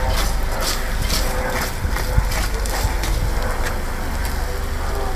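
A fork scraping and clinking against a small camp frying pan as scrambled eggs and bacon are stirred, with one sharper knock about two seconds in, over a steady low rumble.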